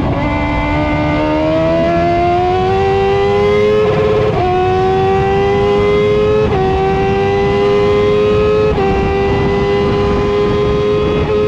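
F1000 single-seater's 1000 cc motorcycle-derived engine at full throttle, heard onboard. Its note climbs through the gears, with upshifts about every two seconds, each a short break and a step down in pitch: the car is being shifted without its flat shifter.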